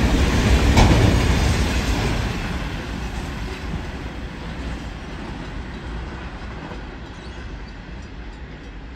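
Container wagons of a garbage freight train rolling over the rails, with one sharp knock just under a second in. The rolling noise fades steadily as the tail of the train moves away.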